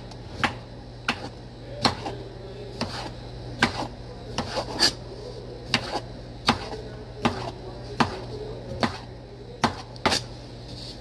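Knife slicing an English cucumber on a cutting board, each cut ending in a sharp knock of the blade on the board, a little more than one a second.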